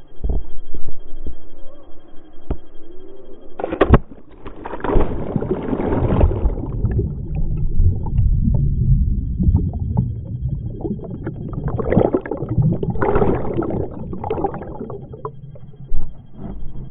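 Water rushing and a body sliding down a water slide: a continuous rumble and gurgle of moving water, with a sharp knock about four seconds in and a loud plunge into the water near the end.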